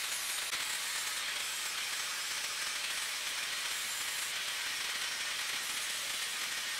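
Angle grinder with a thin cutting disc grinding into leaf-spring steel, cutting a notch in a knife blank: a steady, unbroken grinding noise with no pauses.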